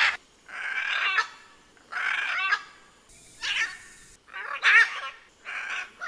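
Scarlet macaws calling: a series of about five loud squawks, one every second or so.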